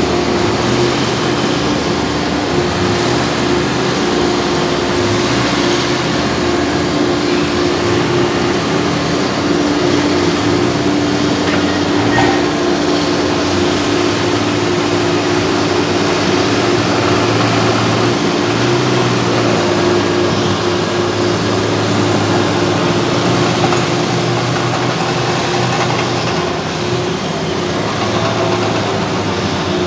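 Bulk carrier's deck crane machinery running continuously: a steady mechanical drone with a constant hum. A lower note steps up and down as the winch hoists and lowers the clamshell grab.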